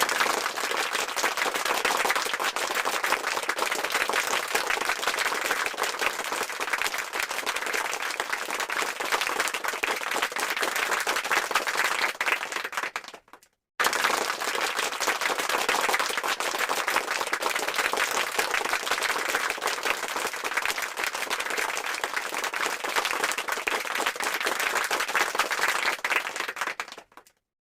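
Audience applause: a crowd clapping steadily. It fades out about thirteen seconds in, starts again suddenly after a short gap, and fades out again near the end.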